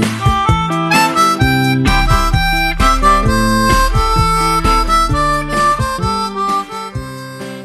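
Background music with a steady rhythm of pitched notes, fading out near the end.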